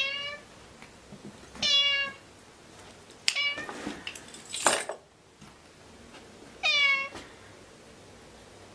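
A domestic cat meowing three times, each a short meow, a couple of seconds apart and then once more after a longer gap. In the middle there is a click and a brief burst of noise.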